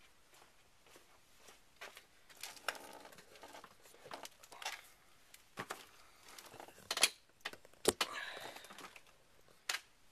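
Handling noise: rustling and scattered clicks, with two sharper clicks about seven and eight seconds in.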